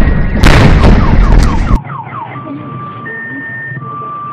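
Car alarms sounding, most likely set off by the meteor's air-burst blast wave: a falling whoop repeated a few times a second, then steady alternating high beeping tones. For the first couple of seconds a loud burst of noise covers them, then it cuts off abruptly.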